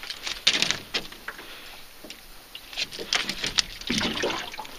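A freshly landed white bass flopping on the floor of an aluminum boat, its body and tail slapping and knocking against the metal in irregular runs of quick taps, a first spell right away and a busier one about three seconds in.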